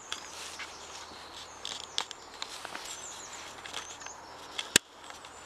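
Footsteps and rustling on grass and fallen leaves in a quiet field, with faint high chirps a little past the middle and a single sharp click near the end.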